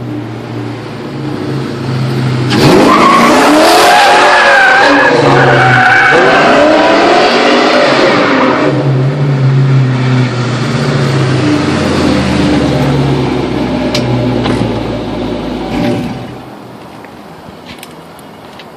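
Ford Mustang's two-valve V8 through a catless Pypes Off Road X-pipe and Flowmaster mufflers, revving as the rear tires squeal in a brief drift attempt from about 2.5 s to 8.5 s. The engine then keeps running at part throttle and drops away sharply near the end.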